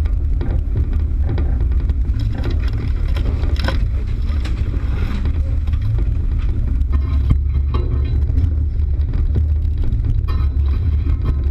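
Off-road vehicle driving: a steady low rumble, with scattered knocks over it.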